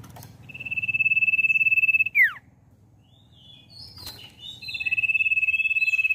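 Common iora's long, even whistle, held about a second and a half and ending in a sharp falling drop, given twice. Between the two whistles come a few short, higher chirps and a brief flutter of wings about four seconds in.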